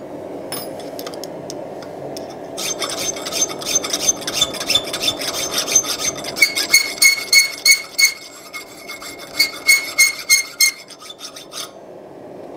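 Round chainsaw file rasping back and forth in the slot of a forged hasp clamped in a vise, about three strokes a second, starting a few seconds in with a short pause near the middle. The steel rings with each stroke. The slot is being lengthened so the staple will fit through.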